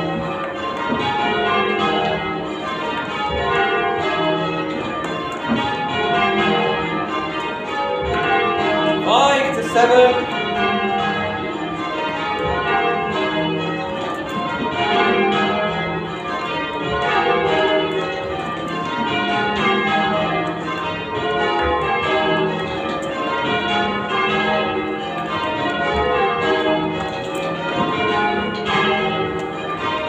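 Church tower bells being change rung, heard from the ringing chamber below, a continuous run of strikes swelling and falling in even waves. A brief louder sound cuts in about nine seconds in.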